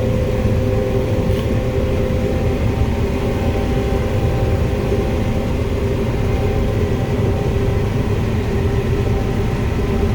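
John Deere 9500 combine running steadily while harvesting corn, heard from inside the cab: a constant low drone with a steady whine.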